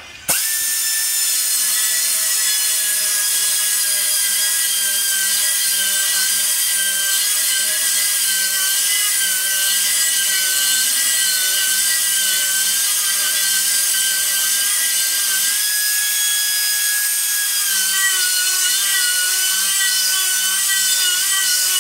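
Handheld pneumatic air tool running continuously with a steady high-pitched whine. It starts abruptly, and its pitch sags and wavers slightly in the last few seconds as the load changes.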